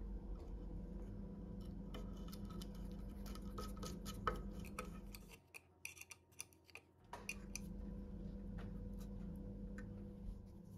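Light metal clicks and clinks of a steel bolt, hex nuts and an open-end wrench being handled, over a steady low hum. The hum cuts out for about a second and a half just past the middle.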